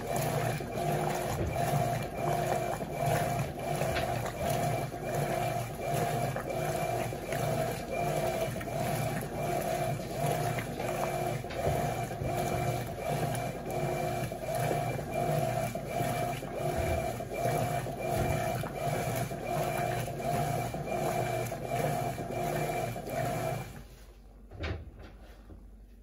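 Electrolux LT12F top-loading washing machine agitating a load of clothes: the motor and mechanical transmission drive the agitator back and forth in a steady, pulsing rhythm. The machine cuts off near the end as the wash cycle stops to let the clothes soak.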